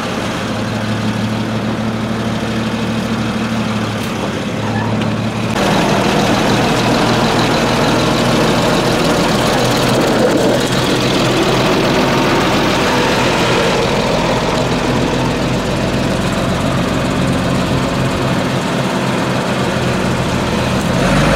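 Fendt Favorit 612 LSA Turbomatik tractor's diesel engine running steadily, louder from about five and a half seconds in as the tractor moves off.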